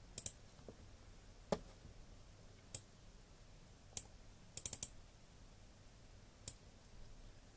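Computer mouse button clicks: a double click at the start, then scattered single clicks and a quick run of four clicks about halfway through.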